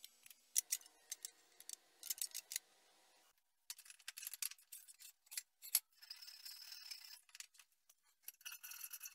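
Faint metallic clicks and scrapes as steel parts are handled and a hand tool works on a steel plate clamped in a bench vise. Music comes in near the end.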